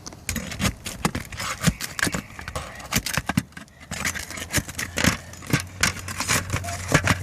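Roofing repair work: irregular knocks, scrapes and metallic clinks of hand tools on shingles and metal flashing. A steady low hum comes in about four seconds in.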